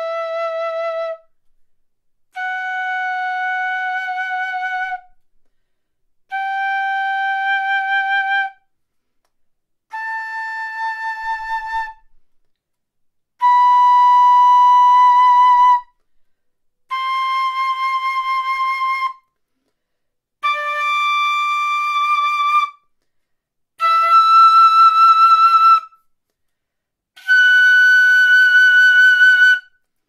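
Reed quena, a South American flute, playing a G scale slowly upward. Each note is held for about two seconds with a short gap before the next, and the pitch climbs a step each time, some notes with a slight waver.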